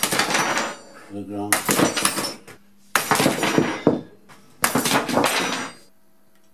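An epoxy granite test bar snapping under load, then the pull rod and spring scale dropping and clattering, on and off. The sound comes as five separate bursts, each starting with a sharp crack and rattling for about a second, with short gaps between.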